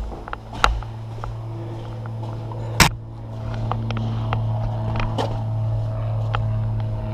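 Scattered sharp snaps of airsoft guns firing, the loudest a single crack about three seconds in, over a steady low hum.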